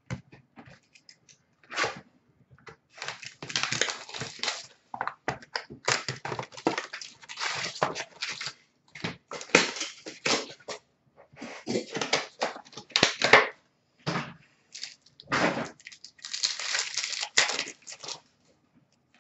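2018-19 Upper Deck Ice hockey card packs being torn open and their wrappers crinkled, with cards handled: irregular crackling and rustling in short bursts.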